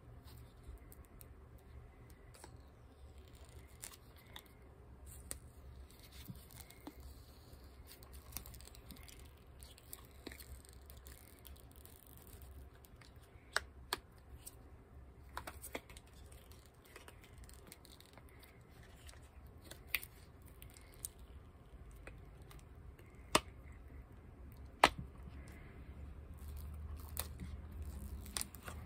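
Silicone mold being flexed and peeled by hand off a cured epoxy resin jar: faint rubbery handling with scattered sharp clicks as the mold pulls away, a few louder ones after the middle. A low steady hum runs underneath.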